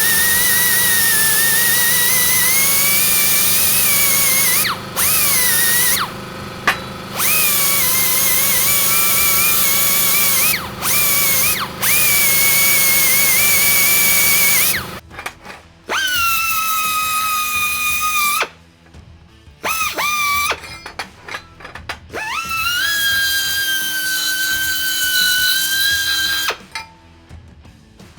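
Handheld electric drill running in repeated bursts of a few seconds. Its motor whine rises as it spins up and falls away each time it is released. About halfway through, the whine settles to a different pitch over a quieter background.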